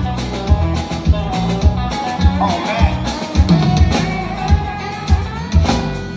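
Live band playing an instrumental passage of a country song: a drum kit keeps a steady beat of about two hits a second under bass and electric guitar.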